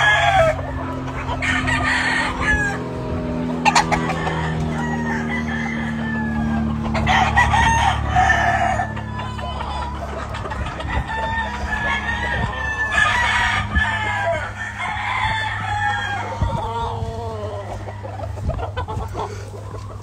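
Several gamecock roosters crowing one after another from the pens, with some clucking, over a low steady hum.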